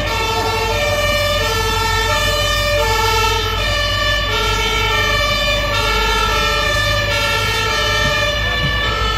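Several fire engines' two-tone sirens (the German Martinshorn) sounding at the same time, out of step with one another. Each alternates between two pitches about every half second, over a steady low rumble of the trucks' engines.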